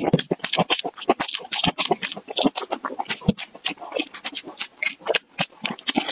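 Close-miked eating sounds: dense wet clicks, smacks and slurps as marrow is sucked from a cut beef bone and braised beef is chewed.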